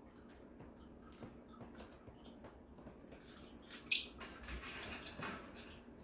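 Pet budgerigar chirping softly in short calls, with one loud, sharp chirp about four seconds in.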